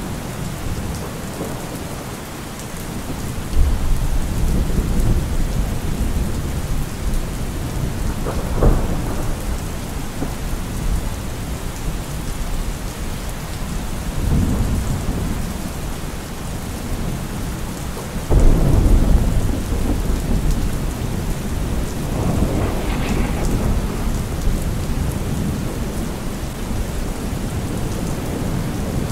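Steady rain with thunder rumbling several times, two of the rumbles starting suddenly.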